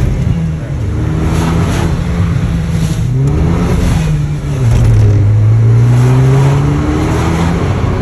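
Opel Astra OPC's 2.0-litre turbocharged petrol four-cylinder, heard from inside the cabin through its loud aftermarket sport exhaust, refitted with a new flex pipe, as the car accelerates. The engine note climbs in pitch, dips about three seconds in, then climbs again.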